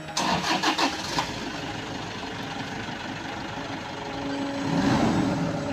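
A vehicle engine cranking in a quick run of pulses for about a second, catching, then running steadily, with one swell in engine noise near the end.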